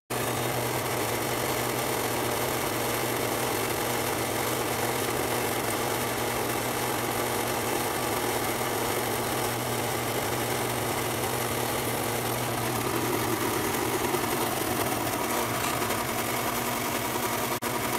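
Drill press turning a hole saw through quarter-inch 6061 aluminum plate: a steady motor hum with continuous cutting noise.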